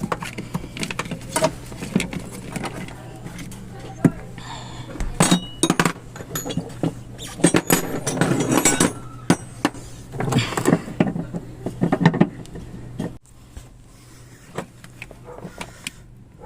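Metallic clinks and rattles of work around a vehicle battery, over a steady low hum that cuts off about thirteen seconds in.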